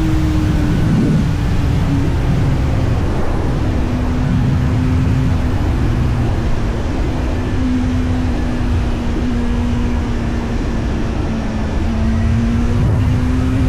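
Kawasaki Z900's inline four-cylinder engine pulling at a steady cruise, its pitch easing down a little early on, holding level, then rising slightly near the end.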